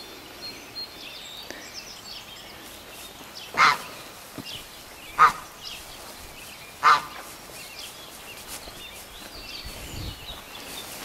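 Domestic geese honking: three loud, short honks about a second and a half apart, near the middle.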